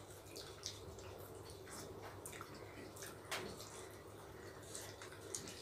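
Faint wet eating sounds of rice and chicken curry being eaten by hand: scattered moist clicks and smacks from mouths and fingers in the food, the sharpest about three seconds in, over a low steady hum.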